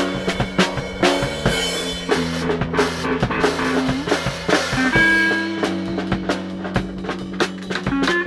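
A live band jamming: a drum kit played with sticks, with snare, bass drum and cymbal hits, over held bass and guitar notes. The drumming gets busier about halfway through.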